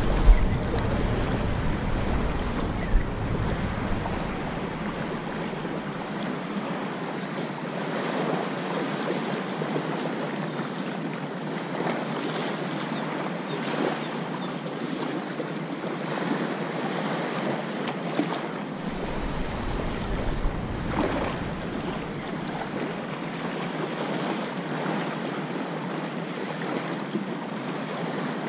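Small waves lapping and washing on a sandy shore. Wind buffets the microphone with a low rumble at the start and again about two-thirds of the way through.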